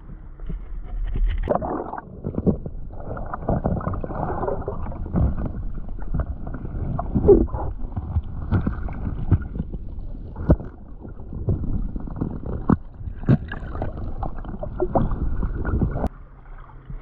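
Water sloshing with irregular knocks and thumps, heard muffled through an action camera held underwater.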